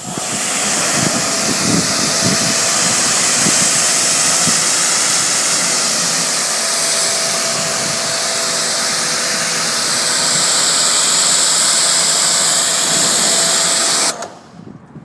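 Pressure washer spraying a high-pressure jet of water: a loud, steady hiss with a faint steady whine under it, starting abruptly and cutting off suddenly about a second before the end as the trigger is let go.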